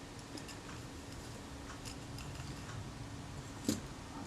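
Faint, scattered small clicks and ticks of metal camera parts being handled as a retaining ring is fitted to the bottom of a Rolleicord shutter, with one sharper click near the end.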